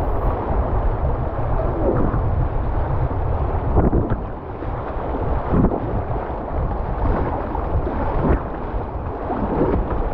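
Whitewater river rushing and splashing around a kayak, with wind buffeting the microphone. A few sharper splashes from paddle strokes stand out from the steady rush.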